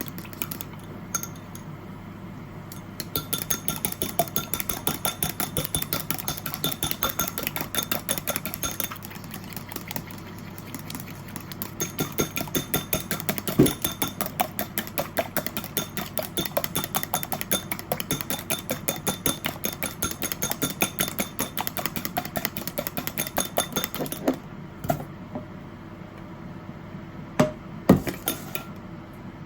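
Rapid, even kitchen strokes, about five a second, in two long runs with a short break, as of a knife chopping on a board or a utensil beating in a bowl; a few separate knocks near the end.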